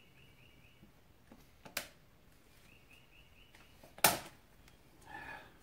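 Two sharp clicks of hand work on the ATV's axle assembly while a retaining clip is fitted: a light one near the middle and a louder one about four seconds in, followed by a short scrape. A bird chirps faintly in short trills twice.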